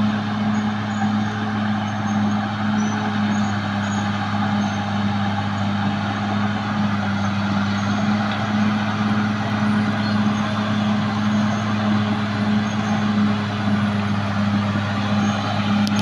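Caterpillar D6R XL bulldozer's diesel engine running steadily, a deep even drone with a constant pitch.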